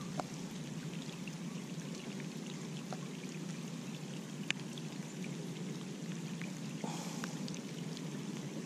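Steady rain, with scattered drops ticking close by and one sharper tick about four and a half seconds in.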